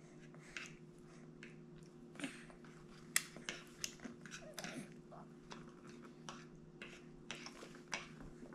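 A baby chewing a mouthful of soft durian: faint, irregular wet smacks and clicks of the lips and tongue, over a steady low hum.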